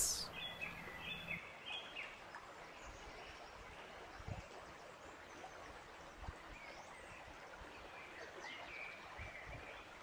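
Faint nature ambience: scattered short bird chirps over a soft steady hiss, with a little cluster of calls in the first second or two and more later on.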